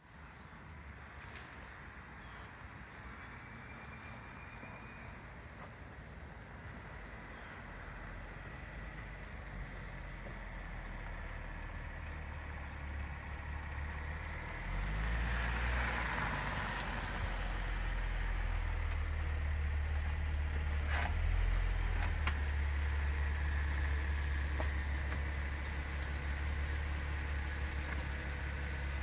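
Infiniti G37's V6 engine, growing louder as the car drives up, with a step up about halfway through. It then runs at idle with a low, steady drone.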